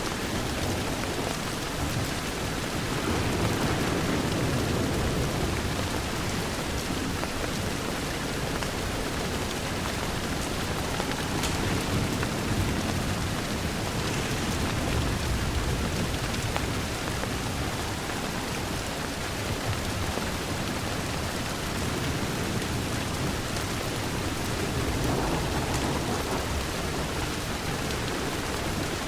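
Steady, even rain falling on a window, with two slow low swells in the sound, a few seconds in and again near the end.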